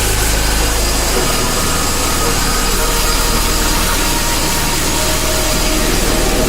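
CNC coordinate drilling-milling machine running, a loud steady machining noise with faint steady tones over it.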